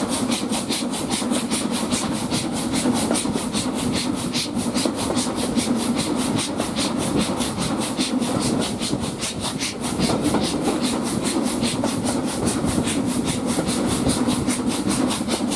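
Steam locomotive S&DJR 7F 2-8-0 no. 53808 working hard with a rapid, even exhaust beat, heard from a carriage window along the train. The chuffs ride over the steady rumble of the coaches running on the rails.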